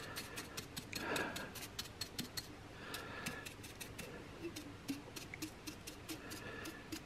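Paintbrush stippling paint onto a glass jar: quick dry taps, about four or five a second at first, then sparser. There is a brief rustle about a second in.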